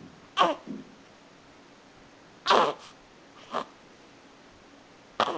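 Newborn baby making short squeaky grunting noises as she wakes, about six brief sounds in bursts a second or two apart, the loudest near the middle.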